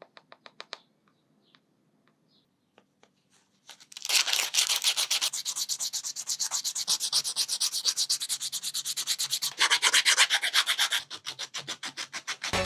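Sandpaper rubbing on a wenge wood carving in rapid, even back-and-forth strokes, after a few light ticks. Music starts near the end.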